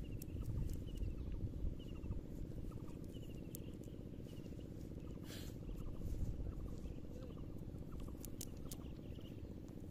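A bird's short, falling chirps repeat every second or so over a steady low rumble, with a few sharp clicks.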